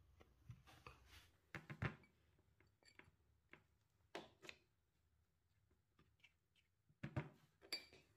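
Faint clicks and clinks of kitchen utensils and dishes being handled, coming in three short clusters of taps.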